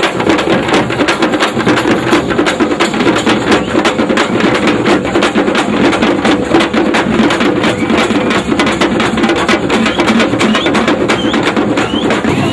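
Loud percussion music: fast, steady drumming with dense, rapid strokes throughout.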